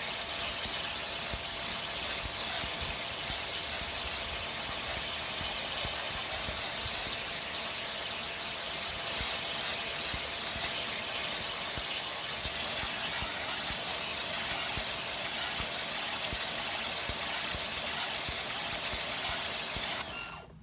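Sun Joe SPX200E electric pressure washer spraying a wide jet of water onto house siding: a loud, steady, high hiss. It cuts off suddenly near the end, as the washer shuts off when the handle trigger is let go.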